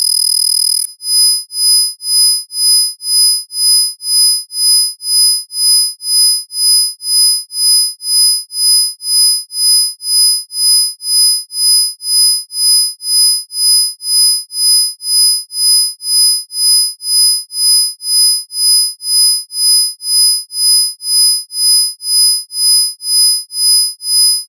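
Synthesized isochronic sine tones: a high, piercing pure tone with a second, higher one above it and fainter lower tones beneath, all pulsing on and off together. About a second in, a fast flutter gives way to a slow pulse of about two beats a second.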